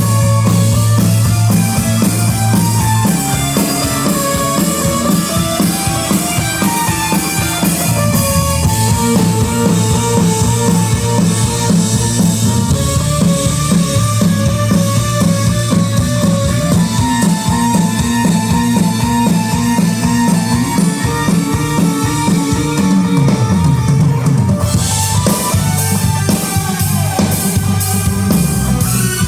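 Live rock band playing: drum kit with bass drum and snare, bass guitar and other instruments running through a song at a soundcheck.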